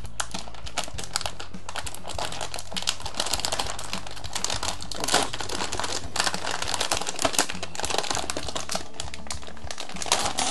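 Anti-static shielded plastic bag crinkling and crackling in dense, irregular bursts as a graphics card is slid out of it and the bag is pulled away.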